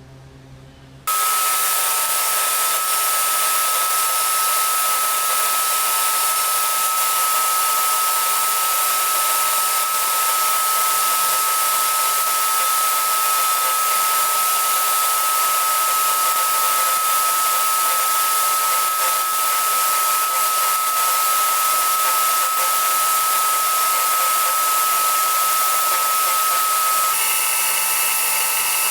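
A power tool switched on and running steadily with a strong whine, its pitch changing shortly before the end.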